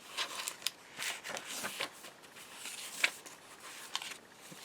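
Paper rustling as the pages, envelopes and cards of a handmade paper journal are handled and turned: a run of short rustles with a few sharp ticks, the sharpest about three seconds in.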